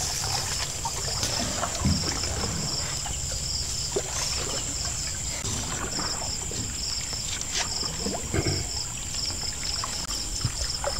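Water lapping and sloshing around a small wooden boat, with a few short knocks against its planks, under night insects chirping in a steady rhythmic pulse.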